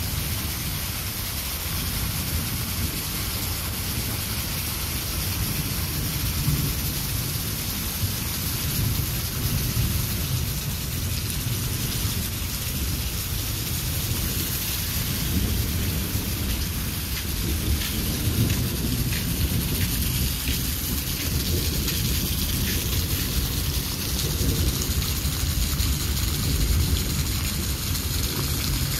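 Steady rain falling on wet ground and runoff water, with a steady low rumble underneath.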